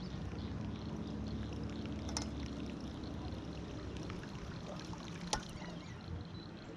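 Water trickling and lapping with a steady low hum, broken by two sharp clicks, about two seconds in and about five seconds in.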